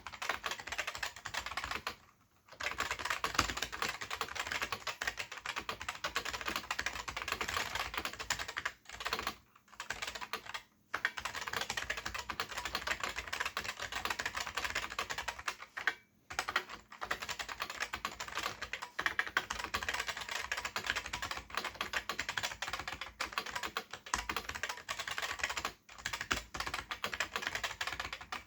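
Fast continuous typing on a Sejin SKM-2000 keyboard with Futaba MA switches and ABS keycaps: a dense run of key clicks, broken by a few brief pauses.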